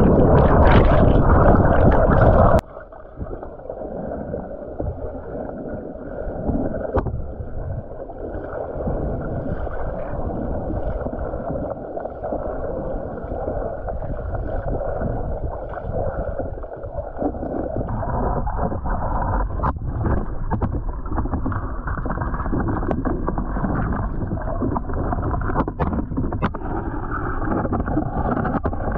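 Whitewater rapids rushing and splashing loudly right at the microphone. About two and a half seconds in, the sound suddenly drops and turns dull as the camera goes under the surface. After that there is only the muffled rush of the current heard underwater, with a few faint knocks.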